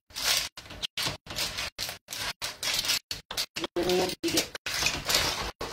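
Clams and porcini mushrooms sizzling as they fry in oil in a frying pan, a steady hiss broken again and again by brief silent gaps.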